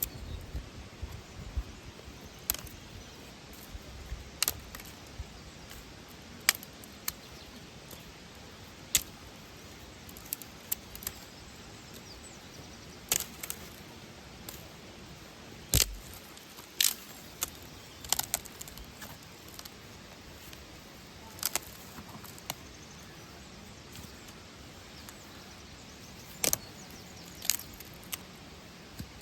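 Campfire crackling: sharp, isolated pops and snaps of burning wood at irregular intervals, over a faint steady hiss.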